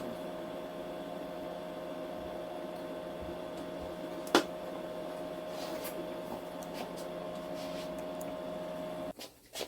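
Steady electrical hum from a machine in the room, with one sharp click about four seconds in and a few faint ticks; the hum cuts off suddenly near the end.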